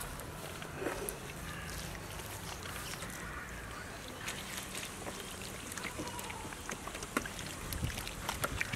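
Small wet clicks and squelches of hands rubbing spice paste into a whole raw goat carcass on a steel plate, coming more often in the second half, over a steady low rumble.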